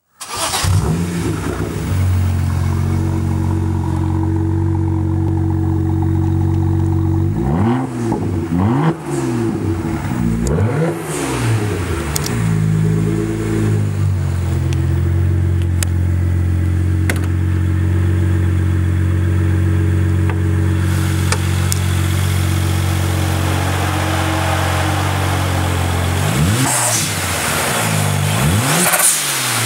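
BMW 1M's twin-turbo 3.0-litre inline-six starting up, flaring briefly and settling into a steady idle. About eight seconds in it is revved three times in quick succession, and near the end it is revved twice more.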